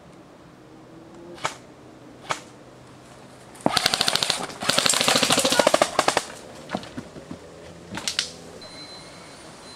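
Airsoft rifle firing two long full-auto bursts, a rapid clatter of shots about four seconds in, with a few single shots before and after.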